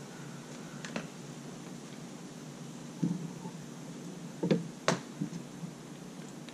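Handling noise from working at the wooden deck framing with a string line: a scattering of short knocks and clicks, the loudest pair about four and a half to five seconds in, over a steady background hiss.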